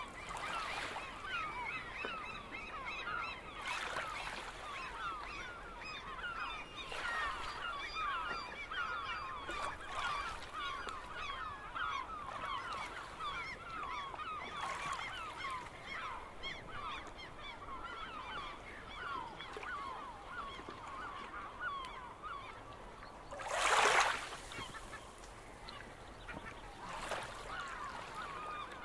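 A large flock of seagulls calling over one another, a continuous chatter of short overlapping cries. Waves wash in every few seconds, the loudest about three-quarters of the way through.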